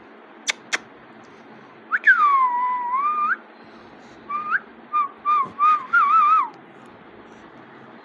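An Alexandrine parakeet whistling. Two sharp clicks come first. Then one long whistle dips and rises again, and a run of short whistles follows, ending in a warble.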